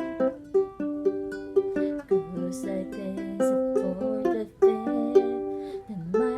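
Tenor ukulele being played: plucked chords and melody notes, each with a sharp attack that rings on briefly.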